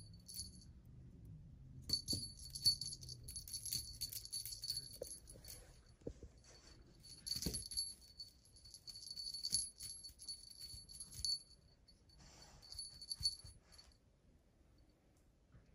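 A small jingle bell on a cat wand toy jingling in several bursts as the toy is shaken and batted by a kitten. The jingling dies away near the end.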